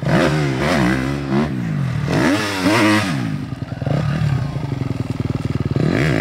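Dirt bike engine revving up and down several times, then running at low revs with a steady chugging beat from about three and a half seconds in.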